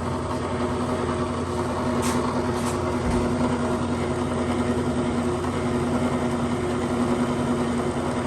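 Ammco 4000 brake lathe running, its electric motor giving a steady hum while the auto feed moves the carriage, with a couple of faint clicks about two seconds in.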